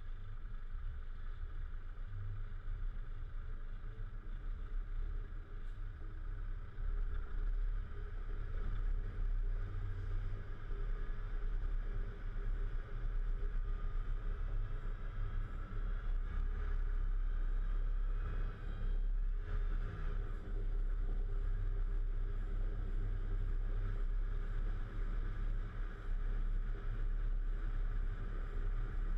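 Volvo FH 440 truck on the move: a steady low rumble of diesel engine and road noise, growing louder about seven seconds in and then holding level.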